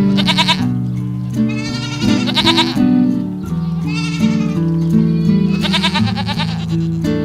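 Bleating livestock: several separate quavering bleats, about one every second or two, over background music with steady low notes.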